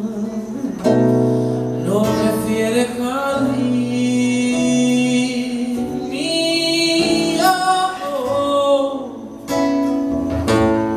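Live song: a man singing long held notes over an acoustic guitar accompaniment.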